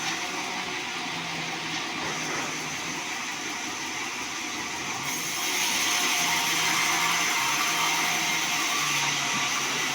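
Sawmill bandsaw running and cutting through a sonokeling (Indian rosewood) log, a steady mechanical whir with a hiss that grows louder about halfway through.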